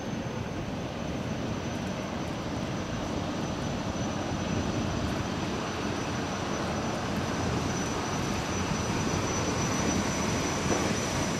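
Boeing 929 Jetfoil hydrofoil passing at speed on its foils: the steady noise of its gas turbines and waterjets with a thin high whine, growing louder as it draws level.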